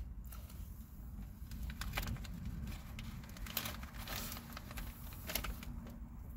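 Cat licking its paw and face while grooming, a run of small wet clicking and crackling licks that are densest between about one and five and a half seconds in, over a steady low hum.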